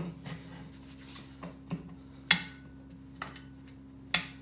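Steel demounting bar of a Harbor Freight mini tire changer levered around a small ATV wheel rim, prying the tire bead off. A few sharp metallic clicks and knocks, the loudest about two seconds in and another near the end, over a faint steady hum.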